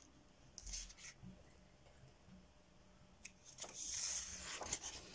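Paper rustling from coloring-book pages being handled and turned: a short rustle about a second in, then a longer, louder rustle with small crackles near the end as a page is turned over.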